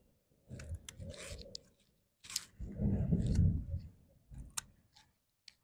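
Scissors snipping kangkong (water spinach) stems: a string of sharp snips, about half a dozen, among the rustle of leaves and stems being gathered by hand.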